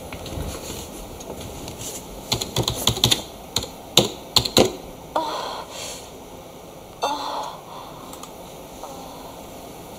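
Computer keyboard keys clicking in an uneven flurry of taps, loudest about four seconds in. Two brief softer noises follow later.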